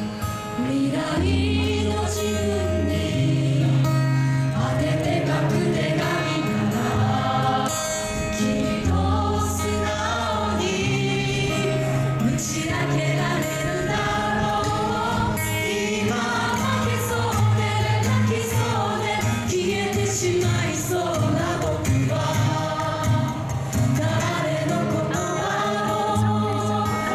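A group of voices singing a song together live, with instrumental accompaniment and a steady bass line.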